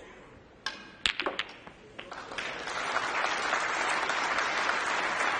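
A snooker cue strikes the cue ball, then a quick run of sharp clicks as the balls collide and a red is potted. About two seconds in, audience applause starts and builds to a steady level.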